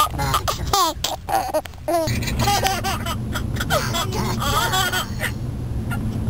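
A small child laughing and giggling, over the steady low rumble of road noise inside a moving car.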